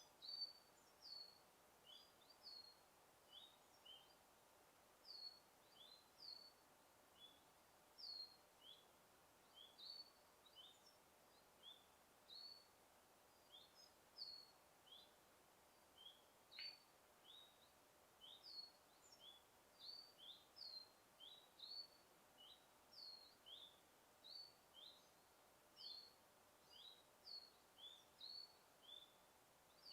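Faint birdsong: a steady run of short, high, slightly falling chirps, about one or two a second, alternating between two pitches, over a soft background hiss.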